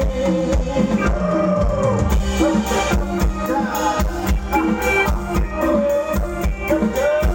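Live band music with a steady drum-kit beat under a sliding melodic line.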